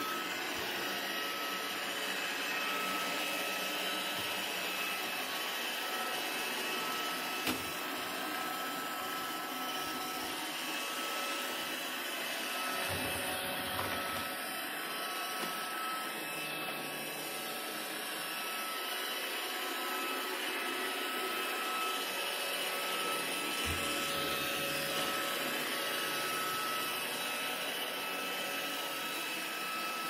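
iRobot Roomba robot vacuum running on carpet: a steady whir of its motor and brushes with a thin, steady high whine on top. A couple of light knocks come through, about a quarter of the way in and again past three-quarters.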